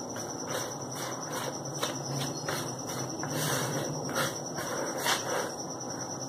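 A hand mixing and rubbing ghee into dry flour and semolina in a plastic bowl: soft, irregular rustling strokes about every half second, over a steady high-pitched whine.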